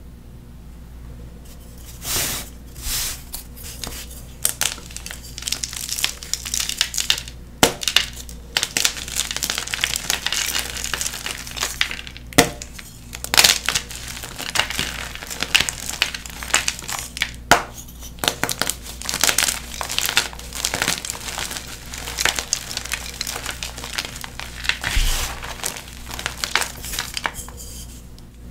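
Blue-dyed NEXO gym chalk blocks being crushed and crumbled, a dense run of crackling and crunching with sharp snaps, starting about two seconds in.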